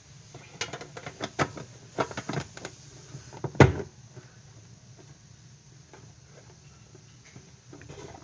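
Pokémon cards and a metal collector's tin being handled: a quick series of light clicks and taps, then one heavier knock about three and a half seconds in, followed by quiet.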